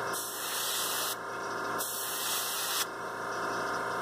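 Airbrush spraying paint in two short hissing bursts of about a second each, laying a light base coat on a model figure's head, with a steady hum underneath.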